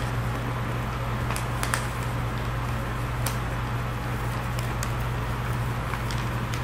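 Sheet of paper being folded and creased by hand, heard as a few faint crackles over a steady low hum.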